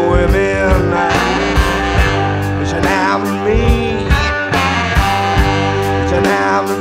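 Live rock band playing electric guitars, bass and drums, with notes bending up and down in pitch over a steady drum beat.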